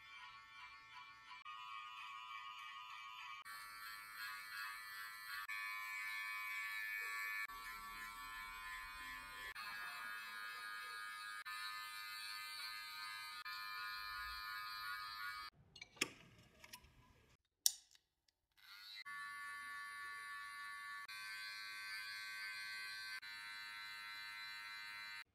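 Background music of sustained, shifting notes, broken about two-thirds of the way through by a short pause that holds a couple of sharp clicks.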